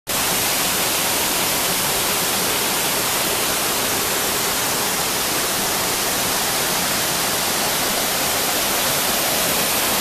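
Waterfall: a steady, even rush of water falling onto rocks, with no let-up.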